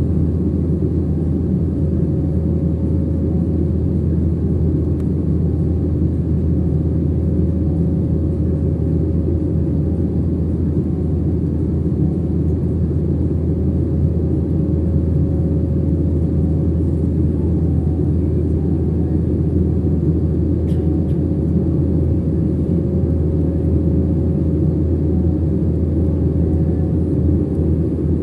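Steady cabin drone of a jet airliner in flight, heard from inside at a window seat: engine and airflow noise as a deep, even rumble with a faint steady hum above it.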